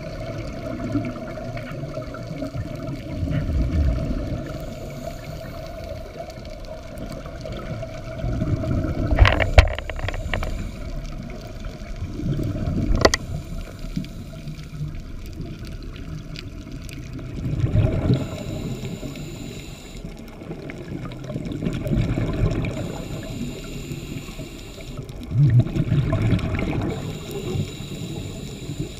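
Scuba divers' exhaled bubbles from their regulators, heard underwater, gurgling and rumbling in a swell every four to five seconds with each breath. Two sharp clicks come near the middle.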